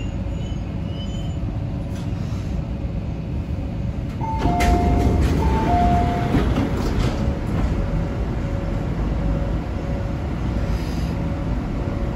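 Hong Kong MTR C-train standing at a platform with a steady low rumble; about four seconds in, the door chime sounds a high-then-low two-note ding-dong twice as the saloon doors and platform screen doors slide open with a rush of noise.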